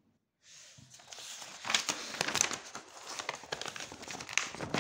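Paper rustling and crinkling as a sheet is handled and turned over to a fresh page. It starts about half a second in, with sharp crackles throughout.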